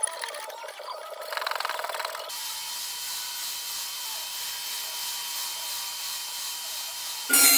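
A wood chisel scrapes and splits thin spalted maple veneer for about two seconds. Then a hand-held belt sander with a dust-extraction hose runs steadily on the maple top. Just before the end a louder whining tool sound cuts in.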